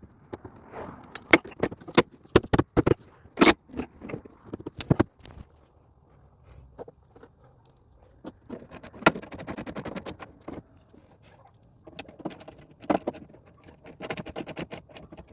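Hand work on a pickup's tailgate: sharp clicks and knocks of plastic and metal parts being handled and snapped into place. A little past halfway and again near the end come quick runs of even clicks, several a second.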